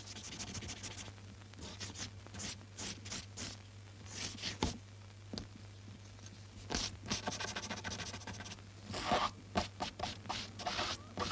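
Irregular runs of short, scratchy scraping strokes that come thicker and louder in the second half, over a low steady hum.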